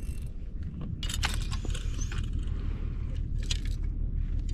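Daiwa Saltiga 5000 spinning reel being worked, a run of mechanical clicks over a steady low rumble.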